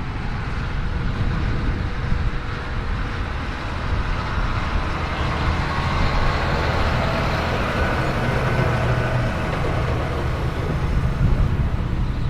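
Heavy diesel harvesting machinery running steadily with a low rumble. A faint whine comes up in the middle.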